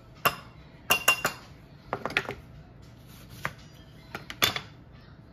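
Kitchen utensils clinking and knocking: a metal spoon and garlic press against a glass mixing bowl and a knife cutting a lemon on a plastic cutting board. A string of sharp separate clicks and knocks, the loudest about a second in and near the end.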